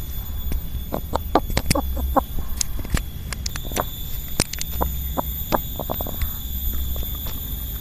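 A sick chicken's rattling breath heard up close on a microphone: irregular clusters of short crackling clicks, the 'krek-krek' rattle of a chicken with a respiratory infection, flu with a runny nose.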